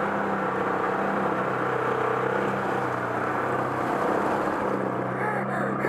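Off-road vehicle engine running steadily at low speed while wading through deep muddy floodwater.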